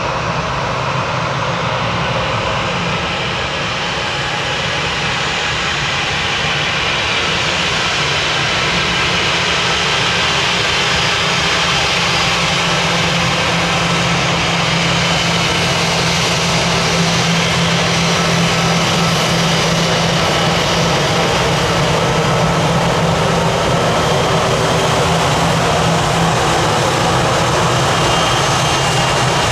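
An Airbus A319 airliner's jet engines running steadily at low power on the ground before take-off: a loud even roar with a faint high whine, swelling slightly over the first several seconds.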